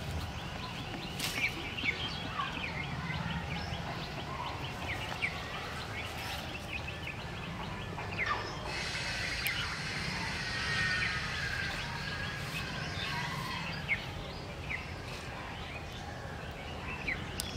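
Outdoor ambience with many short bird chirps and calls scattered throughout, over a steady low hum. A higher steady hiss joins from about nine seconds in until about fourteen seconds.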